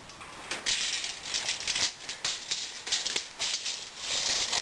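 Irregular rattling and clicking of hardware being handled, with a longer scraping rattle near the end.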